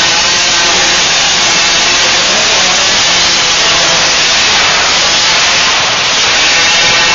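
Small 50cc two-stroke motocross bikes racing at high revs, a loud, steady, hissy wash of engine noise with faint overlapping engine whines.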